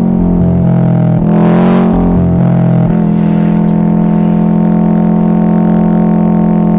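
Subaru WRX STi's turbocharged flat-four boxer engine and exhaust droning under way, swelling briefly about a second and a half in, then holding a steady, even rumble.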